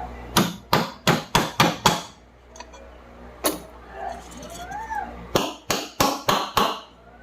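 Light hammer strikes tapping a new bearing into a ceiling fan's aluminium body. A quick run of about six taps comes first, then a single tap a second and a half later, and another quick run of about six taps near the end.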